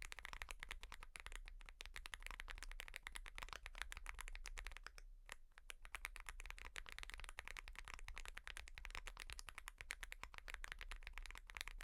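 Fast continuous typing on a mechanical keyboard, a dense stream of key clacks with a short pause about five seconds in.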